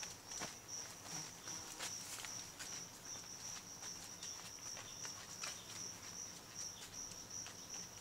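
An insect chirping steadily in a high, evenly pulsing trill of about three pulses a second. Faint footsteps crunch on dry leaf litter.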